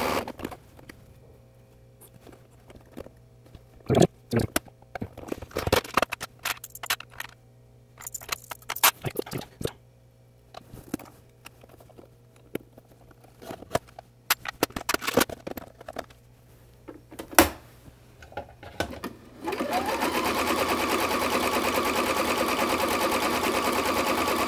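Scattered clicks and knocks of handling at a Husqvarna electronic sewing machine. About twenty seconds in, its motor winds up and the machine runs steadily, sewing a zigzag stitch.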